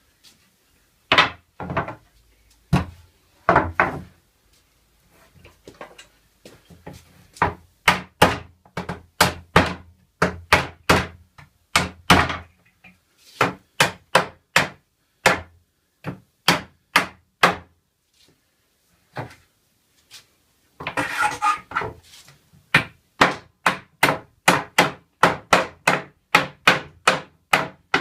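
Hammer driving nails into pallet-wood slats: runs of quick, evenly spaced blows, about two to three a second, broken by a few louder knocks and a clatter of wooden boards being handled.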